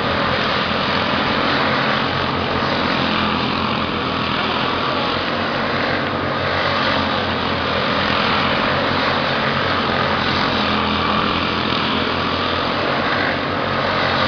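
Several midget race cars' engines running at racing speed around a short oval, a steady high-pitched drone that rises and falls in pitch as cars go by.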